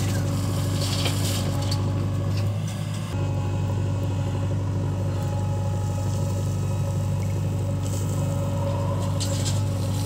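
JCB 3DX backhoe loader's diesel engine running steadily under hydraulic load as it digs and swings. At about a second in and again near the end comes the hiss and patter of loose soil pouring from the bucket into the truck's steel body.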